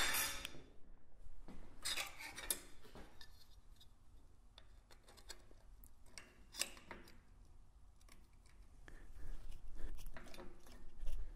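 Scattered metallic clinks and clicks of a strip of sheet steel being set in and worked in the jaws of a bench-mounted metal shrinker. A loud clank of metal on the steel bench comes at the start, and a quicker run of clicks comes near the end.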